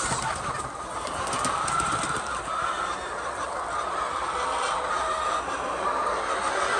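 A flock of chickens clucking and calling over one another in a steady, continuous chatter.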